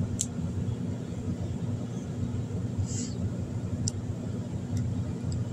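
Steady low background hum, with a few brief light clicks and rustles of a small plastic toy and its packaging being handled.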